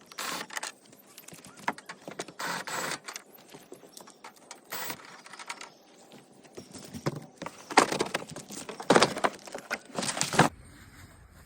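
Irregular knocks, clicks and rattles with rustling between them, coming in uneven clusters and loudest in a run near the end.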